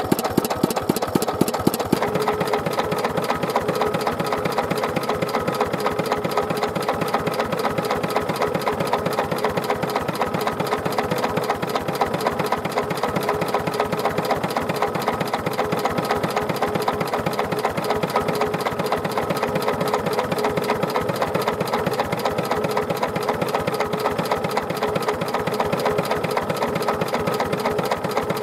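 Kubota Universe KND6C single-cylinder stationary diesel engine running steadily with an even, rapid firing beat.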